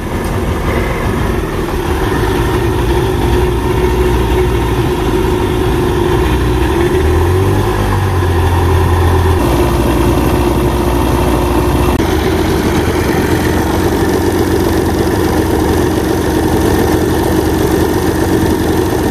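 Johnson 40 hp VRO loop-charged two-stroke outboard, cowling off, running steadily at idle. It is being run to test a newly installed thermostat.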